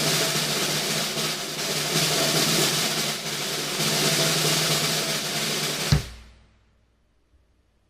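Drum kit played in a dense, fast riff built around a low-tuned Mapex Black Panther Machete 14x6.5 metal snare with bass drum. It ends with a final accented hit about six seconds in and dies away quickly.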